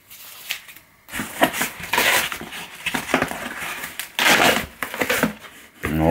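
Cardboard shipping box being opened by hand: its flaps scraping, rubbing and crinkling in irregular bursts. A voice starts near the end.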